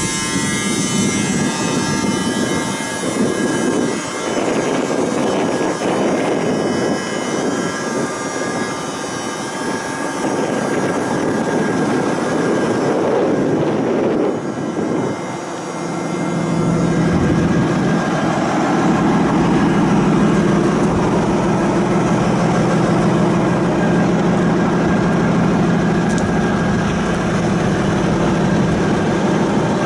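Heavy diesel engine running. The sound is rough and uneven at first, then settles about 16 seconds in into a steady, deep idle.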